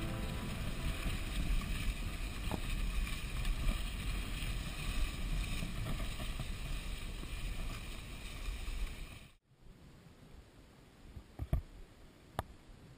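Wind rushing over the microphone and skis sliding on a groomed cross-country ski track during a fast downhill run. About nine seconds in it cuts off suddenly to a much quieter outdoor hush with a couple of short clicks.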